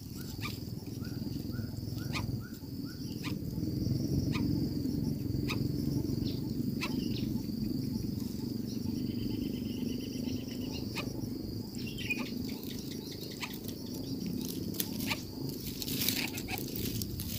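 Light clicks and rustles from a coucal's grass nest while the adult feeds its chick, over a steady low rumble and a steady high insect-like hum. A few faint short chirps in the first few seconds, and a faint buzz midway.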